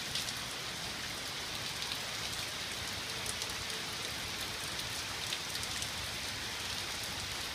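Heavy rain falling steadily on grass and a flooded street, an even, unbroken hiss.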